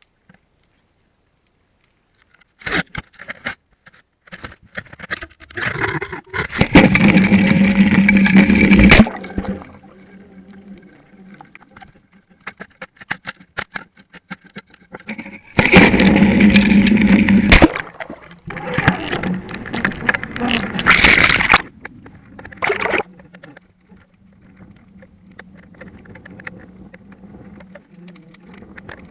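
Scraping and rushing water noise picked up by an underwater camera, in three loud bursts with clicks and quieter rubbing between them.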